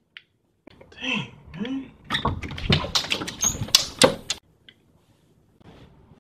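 A brief voice-like sound, then about two seconds of rapid knocking and rattling at a door, stopping abruptly.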